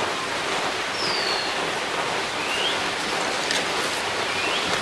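Steady hiss of background noise, with a few short bird chirps: one falling about a second in, and rising ones about halfway and near the end.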